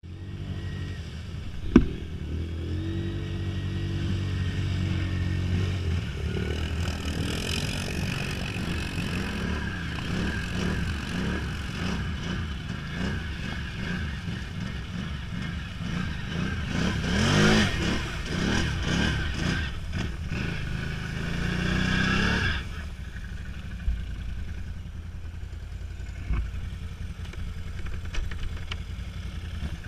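Can-Am ATV engine running as it is driven through deep marsh water, with a sharp knock about two seconds in. The engine revs up hard twice in the second half, then drops back to a quieter idle.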